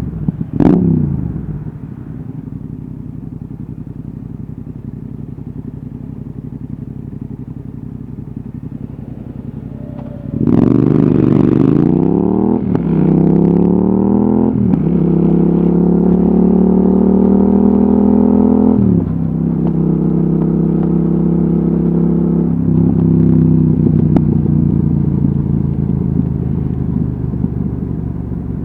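Yamaha XSR700's 689 cc parallel-twin engine through an Akrapovic exhaust: two quick throttle blips at the very start, then idling steadily for several seconds. About ten seconds in it pulls away and accelerates up through the gears with four upshifts, the pitch rising between each, then eases off near the end.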